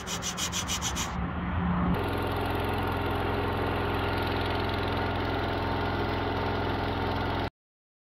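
A hand file scraping metal in rapid, even strokes for about the first second. Then an engine-driven welder generator runs at a steady speed, cutting off abruptly near the end.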